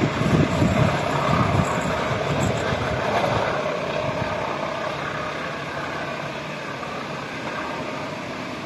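Passenger train rolling away along the track after passing, its rumble fading steadily; the deep rumble dies out about halfway through, leaving a faint wash of distant train noise.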